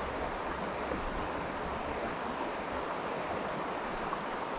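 Steady rushing noise of wind and running water, with a deep rumble at times from wind buffeting the microphone.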